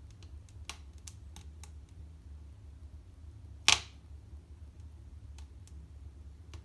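Wood fire crackling in a wood-burning stove: scattered sharp pops, with one much louder pop a little past halfway.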